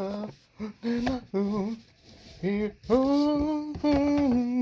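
A person singing a tune without clear words: short phrases first, then long held notes in the second half.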